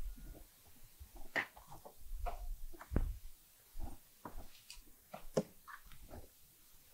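Scattered light knocks and clunks of something being handled, with one heavier thump about three seconds in.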